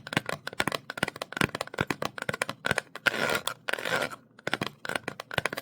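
Close-up ASMR tapping on small objects: quick, irregular taps, several a second, with a short ringing note on each, broken twice by brief scratching about three and four seconds in. The sound cuts off abruptly at the end.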